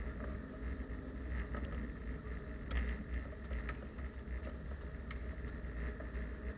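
Steady low rumble of a slow-moving car's engine and tyres heard from inside the cabin, with a few faint irregular ticks.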